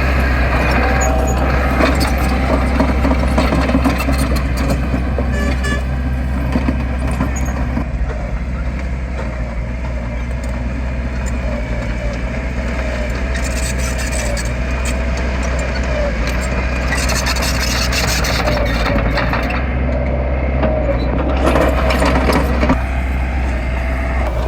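Heavy diesel construction machinery running steadily: a deep, constant engine drone with a wavering whine above it and a few short clanks.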